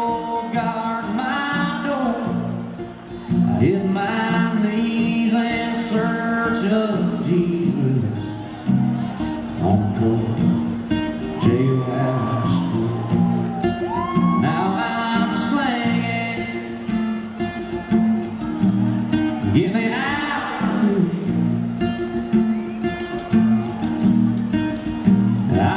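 A man singing with his own steel-string acoustic guitar, performed live and amplified in a large arena.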